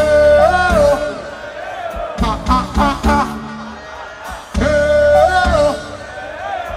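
Live reggae band music with heavy bass. A melodic phrase that steps up in pitch and back down is played twice, just after the start and again about halfway through.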